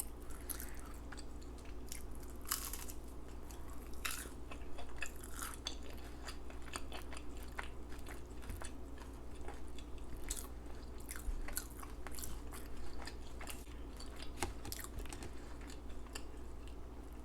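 A person chewing McDonald's fast food with an open mouth, close to the microphone: irregular wet smacks and mouth clicks with soft crunching.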